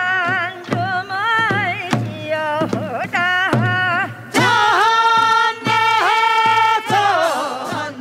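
A Korean farming folk song (nongyo) sung in a wavering, ornamented voice, with a long held note in the middle, over beats on traditional Korean barrel drums.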